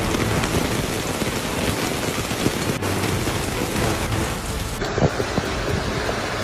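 Heavy rain falling, a steady even hiss, with a short knock or splash about five seconds in.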